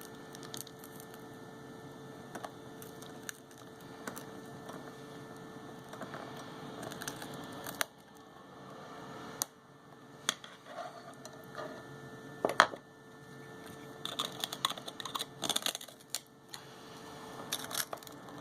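A pry tool scraping, crackling and clicking as it works under the cracked rear camera glass of an LG G5 to lift it off, with sharp clicks scattered throughout and more of them near the end. A steady low hum sits beneath.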